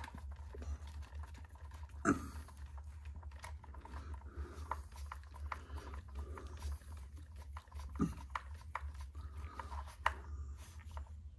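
Small irregular clicks and ticks of tiny screws and parts being handled and fitted into an RC car chassis, with a few sharper knocks at the start, about two seconds in and about eight seconds in, over a steady low hum.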